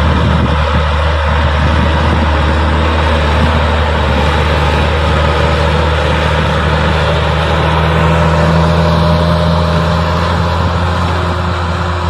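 Case IH Puma 140 tractor's diesel engine running steadily under load while pulling a disc harrow through dry soil.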